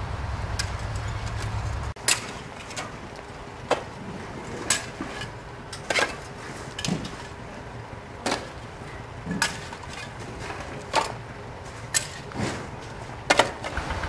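A low rumble for the first two seconds, then fired clay bricks clinking as they are stacked by hand from a handcart: a sharp brick-on-brick knock about once a second, sometimes two close together.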